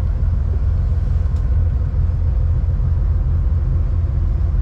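Twin Volvo Penta engines of a Sealine F43 motor yacht running steadily under way: a continuous low rumble with a faint steady hum above it.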